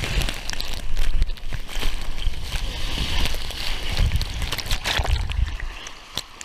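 Water sloshing and splashing, with a heavy, uneven low rumble on the microphone and a few sharp clicks.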